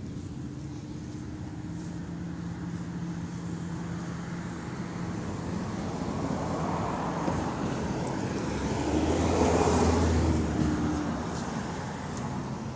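A car passing on the road: its tyre and engine noise rises to a peak about three-quarters of the way through, then fades, over a steady low hum.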